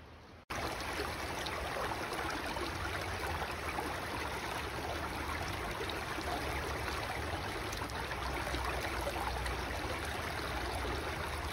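Shallow stream running over a stony bed, a steady rushing, babbling water sound that starts abruptly about half a second in.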